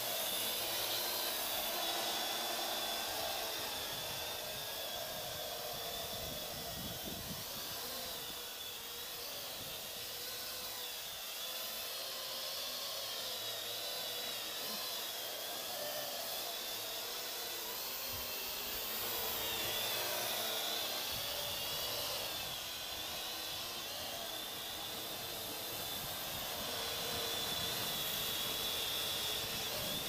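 Parrot AR.Drone quadcopter's four electric motors and propellers whirring steadily in flight, the whine wavering up and down in pitch as the motors change speed to steer and hold the drone.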